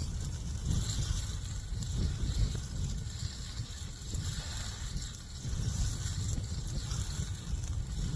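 High wind gusting against a tent and buffeting the microphone: an uneven low rumble that rises and falls, under a steady hiss.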